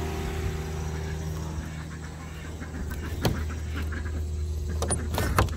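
A resin shed door being handled and pushed shut: one knock about three seconds in, then a quick run of clicks and knocks near the end, over a steady low hum.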